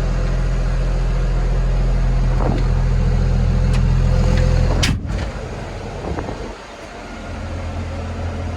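Komatsu D51EX-22 bulldozer's diesel engine idling steadily. About five seconds in there is a single sharp knock, after which the engine sound drops away for a couple of seconds and comes back somewhat quieter.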